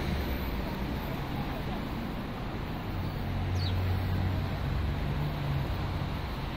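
City street traffic: a steady wash of road noise with a low engine hum that swells in the middle, as a vehicle passes.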